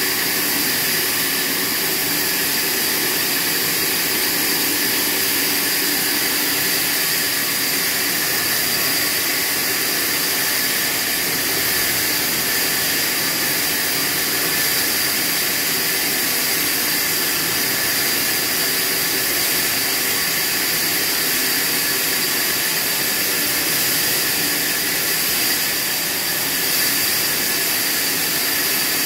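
Horizontal band sawmill blade sawing lengthwise through a padouk log: a loud, steady hiss and whine of the running blade and its drive, with several high steady tones.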